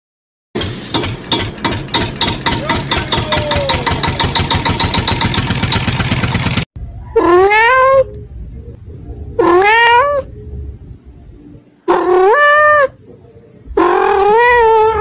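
A fast, even pulsing sound for about the first six seconds, which stops abruptly. Then a domestic cat meows four times, each meow about a second long and rising in pitch.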